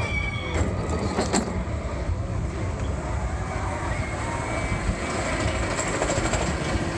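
Expedition Everest roller coaster train rolling along its track: a steady rumble, with a few sharp clicks and a short high squeal in the first second or so.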